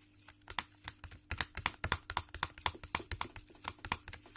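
A spoon clicking and tapping against a small pot while stirring a runny hand-soap and salt slime mixture: a quick, irregular run of sharp clicks, several a second, busiest from about a second in.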